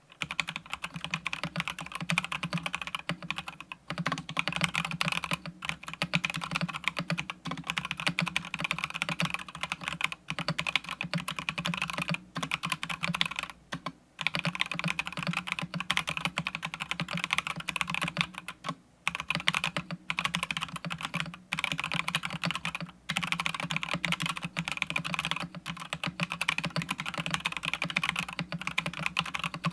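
Typing on a stock, unmodified budget 60% wireless mechanical keyboard: a steady stream of keystroke clacks, broken by short pauses every few seconds.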